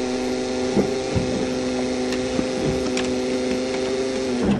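Starter motor of a stalled 1982 Toyota Cressida whirring steadily as the key is held to restart the engine, which does not catch; the whir winds down and stops near the end.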